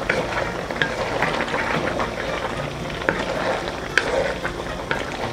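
Wooden spatula stirring a thick beef stew in a metal wok, with a few short knocks and scrapes against the pan over the steady sizzle and bubbling of the sauce as it reduces.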